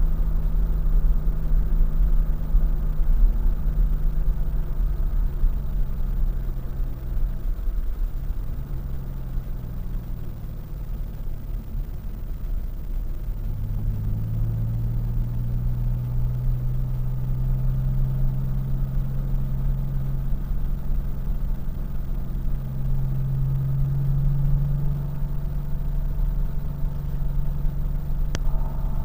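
Car engine heard from inside the cabin while driven at speed on a circuit, over a constant low road and wind rumble. Its note drops around four seconds in and again around eight seconds as the car slows for a corner, then climbs steadily from about fourteen seconds as it accelerates out and stays up.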